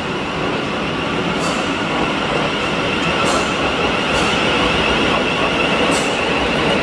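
A Southeastern electric multiple-unit train approaching along the platform, its running noise growing slowly louder, with a steady high whine and a few short high hisses.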